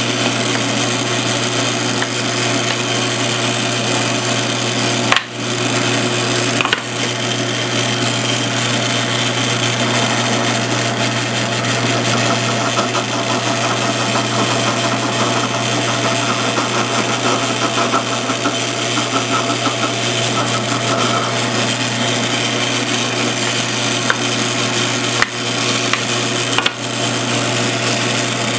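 Drill press running steadily with a constant motor hum while a 3/8-inch brad-point bit bores through holes in a wooden board. The sound breaks off very briefly a few times.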